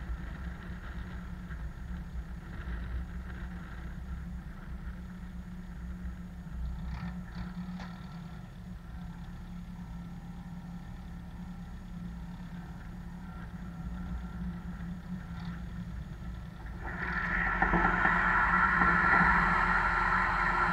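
Tractor engine idling steadily. Near the end the Kverneland trailed sprayer is switched on and water streams from its boom nozzles, adding a louder rushing sound over the engine.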